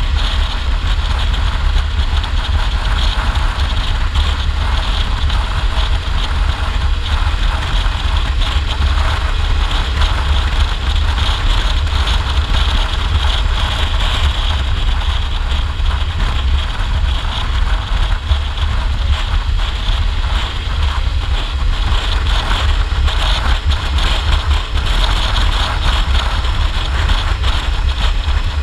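Motorcycle cruising at about 50 mph: steady wind buffeting on the microphone over the engine and tyre noise, with no change in pace.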